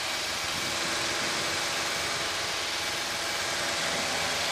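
Piper PA-28-151 Cherokee's four-cylinder Lycoming engine and propeller running steadily at climb power, heard inside the cabin with an even hiss of airflow over it.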